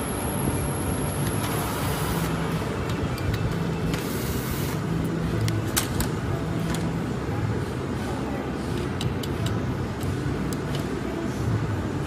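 Steady workshop background noise with a few light metallic clicks and taps as tablet press parts and tools are handled.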